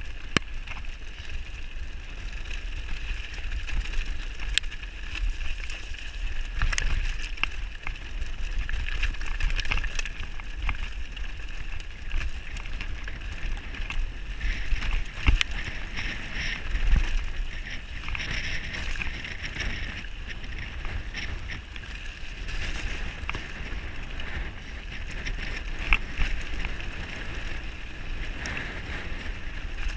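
Mountain bike rolling fast down a loose rocky gravel trail: steady wind rumble on the microphone, tyres crunching over stones, and sharp knocks and rattles as the bike hits rocks a few times.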